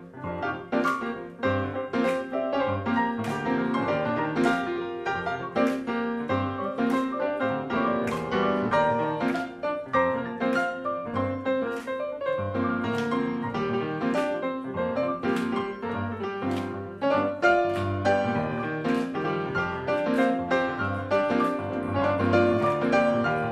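Two grand pianos played together by three pianists, four hands on one keyboard: a busy, rhythmic piece driven by a steady pulse of chords.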